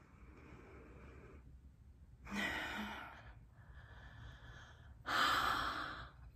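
A woman's breathy exhalations and sighs through an open mouth, several in a row with the loudest near the end.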